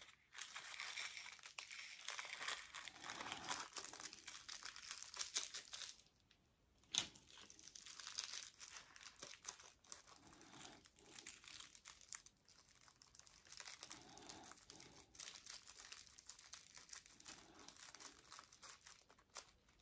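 Small plastic bag of round resin diamond-painting drills crinkling as the drills are shaken out into a plastic drill tray, for about six seconds. A sharp click follows, then fainter crinkling and light clicks as fingers spread the drills around the tray.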